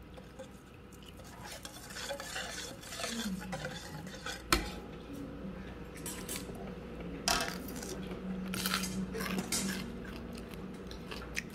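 Spoon and chopsticks clinking and scraping against a stainless steel soup bowl, with one sharp clink about halfway through.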